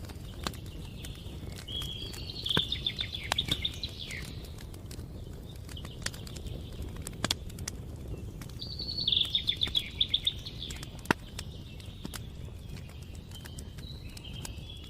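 Wood campfire crackling, with scattered sharp pops over a low steady rumble. A songbird twice sings a rapid trilled phrase of high notes, about two seconds in and again near ten seconds.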